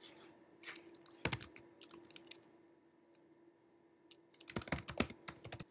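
Typing on a computer keyboard: two bursts of quick key clicks, one about half a second in and another near the end, with a lull between them, over a faint steady hum.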